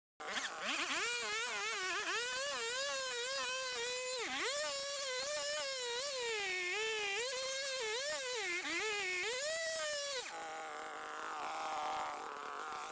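Chainsaw with a 4-foot bar and ripping chain cutting lengthwise through a log under heavy load. The engine's high whine wavers and dips over and over as the long bar drags in the cut. About ten seconds in it eases off to a lighter, quieter running pitch.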